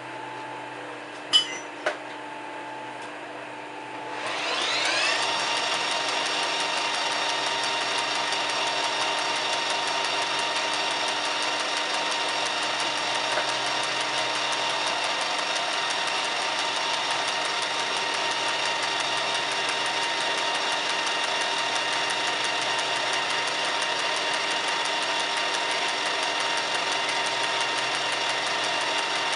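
Two sharp clicks, then about four seconds in a metal lathe starts up: its motor and gearing spin up with a rising whine and settle into a steady run, with a connecting rod turning on the faceplate.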